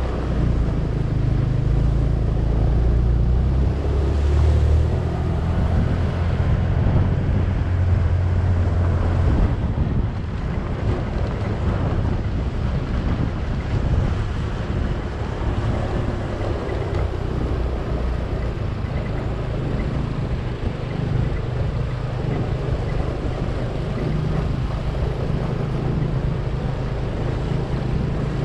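Small motorcycle engine running while riding along a rough track, with wind rumbling on the microphone. The engine note shifts several times in the first ten seconds, then runs more evenly.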